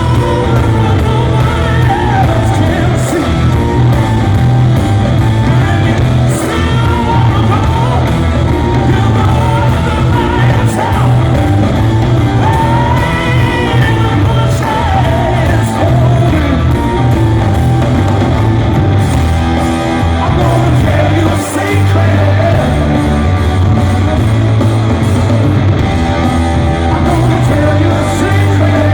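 Rock band playing live, with a male singer over a full band. The music is loud and continuous.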